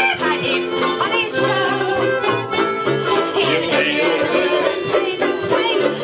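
Banjos and a piano accordion playing a folk tune together.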